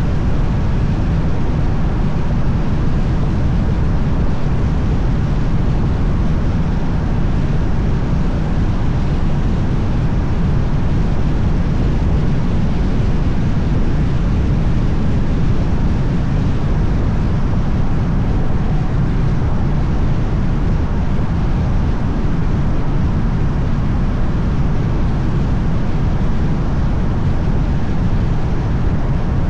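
Steady low rumble of a car on the move: road and wind noise picked up by an action camera mounted on the outside of the hood, with its wind-reduction audio switched on.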